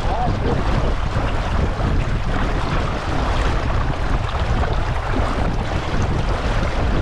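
Steady wind buffeting the microphone over the rush of water around a small sailboat's hull.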